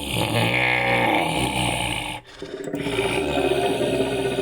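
Made-up monster roar sound effect: two long roars, the first bending up and down in pitch, with a short break about two seconds in.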